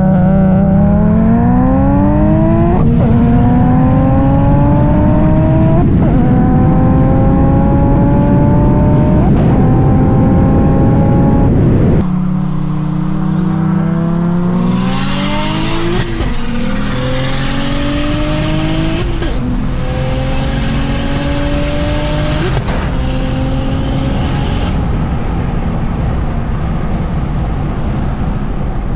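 Single-turbo BMW N54 inline-six accelerating hard through the gears, its pitch climbing steadily and dropping sharply at each upshift, about three shifts in a row. Then a second pull through three more gears, with a loud rushing noise over the engine for much of it.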